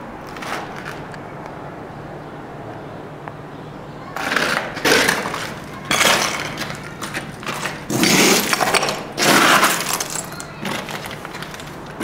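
Footsteps crunching and scraping on a gritty, rubble-strewn floor. There are several loud bursts of crunching from about 4 s in to near the end.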